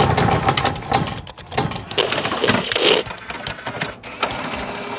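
Sound effects of a channel logo intro: rapid mechanical clicking and rattling that comes in a few surges.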